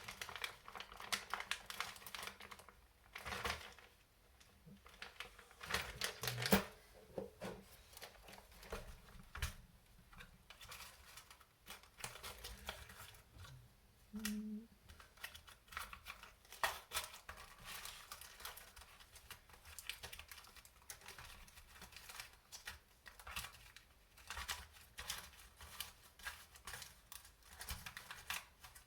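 Rummaging through a kit's small plastic hardware bags and parts box: bags crinkling and small parts and screws clicking in an irregular run of clicks and rustles.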